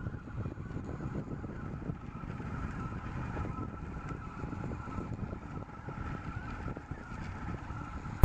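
RepRap 3DR delta 3D printer running a print: a steady, slightly wavering stepper-motor whine over a low rumble.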